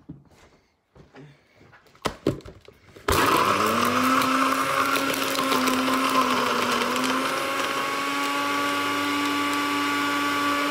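A countertop blender is switched on about three seconds in, after a few light clicks. Its motor spins up quickly and then runs steadily with a constant whine, blending a thick smoothie mix that sticks in the jar for lack of liquid.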